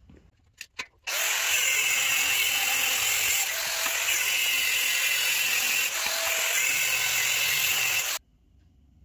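Handheld angle grinder cutting through a metal caster stem. It runs steadily for about seven seconds, starting and stopping abruptly, with a couple of light clicks just before it starts.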